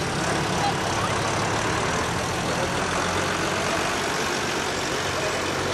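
Diesel engine of a Case International 1056 XL tractor running steadily at low revs close by.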